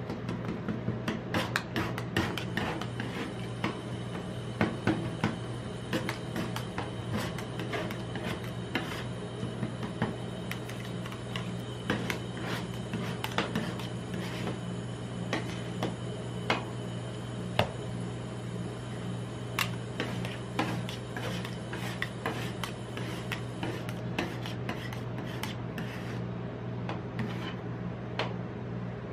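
Metal spatulas scraping, tapping and chopping ice cream mixture on a steel rolled-ice-cream cold plate: a quick, irregular run of scrapes and clicks as the mix is worked and gathered. A steady low hum runs underneath.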